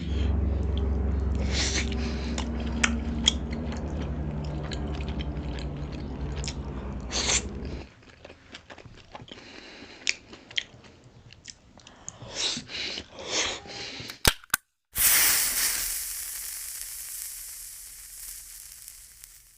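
Close-miked chewing and biting of pork momos (dumplings), with wet mouth clicks and crunches. A steady low hum sits under the first part, and a loud hiss sets in near the end and fades away.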